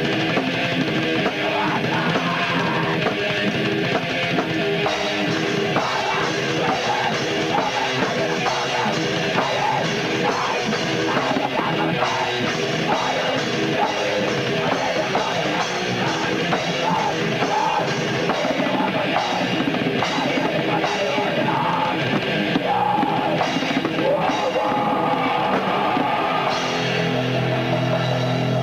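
Heavy metal demo recording: a band with a drum kit playing a dense, loud, continuous passage. The riff changes about two seconds before the end.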